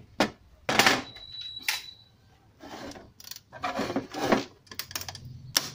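Hard plastic stereo lid being handled and pressed by hand: rubbing and scraping noises, then a quick run of sharp plastic clicks and snaps near the end as the melted-out rectangle is pushed loose.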